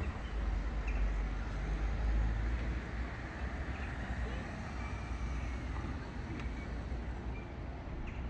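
Outdoor town street ambience: road traffic with a low rumble in the first few seconds, and voices of people nearby.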